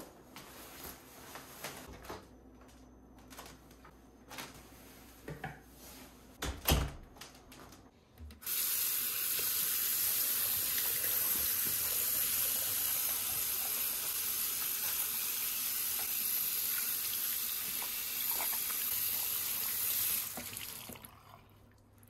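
A few scattered knocks and clicks of handling, one louder thump about a third of the way in. Then a bathroom sink tap runs in a steady stream into the basin while hands are rinsed under it, and it is turned off near the end.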